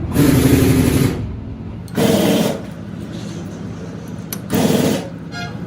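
A power tool run in three short bursts, each lasting about half a second to a second: at the start, about two seconds in and about four and a half seconds in.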